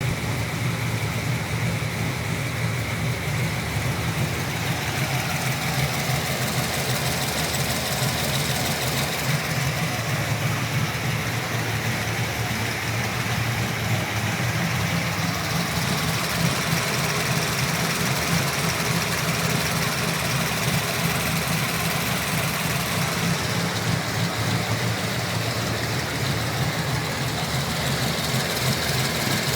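GM LS3 6.2-litre V8, fitted with an aftermarket street cam and long-tube headers, idling steadily with a tick that the owner wonders may be lifter tick.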